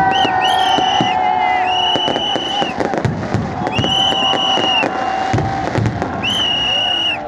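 New Year fireworks bursting over a crowd: a dense run of bangs and crackles. Several shrill whistle-like tones are held for about a second each, with crowd noise underneath.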